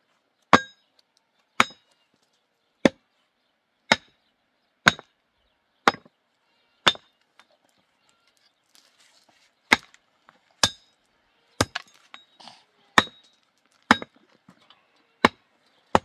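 Pickaxe striking stony ground around the base of a wooden post, about one sharp blow a second, metal ringing on stone with each hit. The blows stop for about two seconds midway, then resume.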